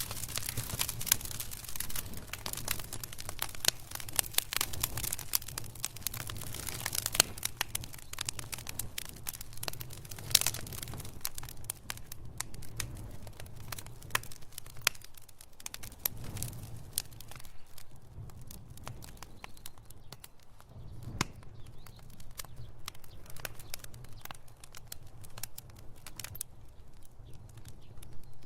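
Wood fire crackling in a fireplace: dense irregular pops and snaps over a low rumble of flames, thinning to sparser pops about halfway through.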